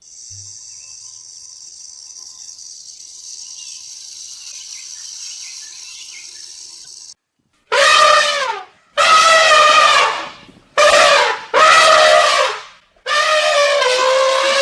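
A steady high hiss, then after a brief silence an animal calls five times, loud and trumpet-like, each call about a second long and dropping in pitch.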